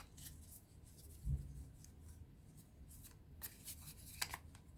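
Faint handling of tarot cards: soft scattered rustles and a few light clicks.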